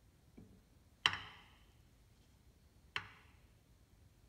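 Two sharp metallic clicks about two seconds apart, each with a short ringing tail, after a faint knock: the steel spindle of a Bridgeport mill knocking against the quill as it is pushed in by hand and its splines lined up.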